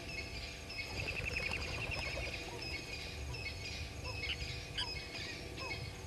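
Several birds calling in the bush: a fast trill about a second in, repeated short high chirps, and a few low upward-sliding whistles.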